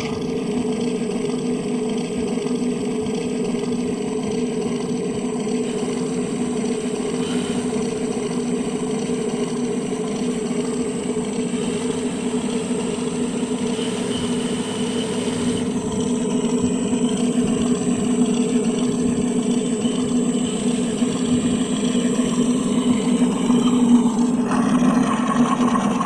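P-38 Lightning engine sound: a steady, even drone with a strong low hum and a faint high whine, growing a little louder over the last ten seconds.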